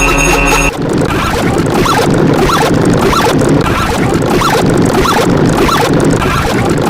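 Edited sound effect: a held pitched tone cuts off under a second in. It gives way to a dense, rapid rasping chatter dotted with many short rising squeaks.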